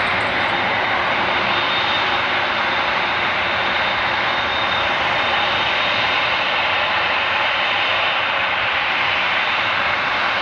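Silk Way West Boeing 747-8 freighter's four GEnx-2B turbofans running steadily as the jet turns on the runway: an even jet rumble with a thin, high whine over it.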